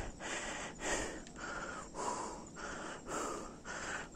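A cyclist breathing hard and fast after a climb, heard close on a chest-mounted phone, about one breath every half second.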